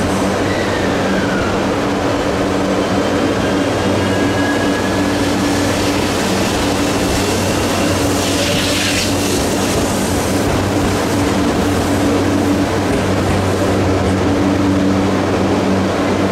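Y000 series electric train starting off and accelerating, its early Toshiba IGBT VVVF inverter whining in tones that glide and shift in pitch. A brief hiss rises as it passes, over a steady low hum.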